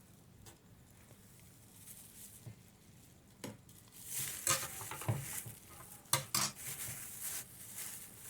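A ladle and spoon clinking and scraping against a pot or bowl while scooping mashed plantain into a bag: scattered knocks, busier in the second half, with some rustling.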